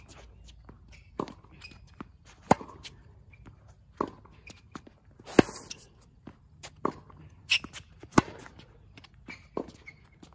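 Tennis rally on a hard court: a string of sharp pops from rackets striking the ball and the ball bouncing, roughly one every second or so. The loudest pops are the near player's groundstrokes, with fainter ones from the far side of the court.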